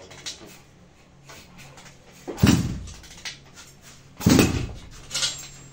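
Bare 400cc two-stroke single-cylinder engine being kicked over without catching: two sharp bursts of the engine spinning over about two seconds apart, each dying away in under a second, and a weaker one near the end.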